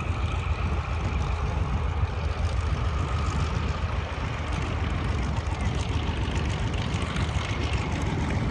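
Propeller aircraft engine droning steadily, a constant low rumble with a faint whine that sags slightly in pitch during the first few seconds.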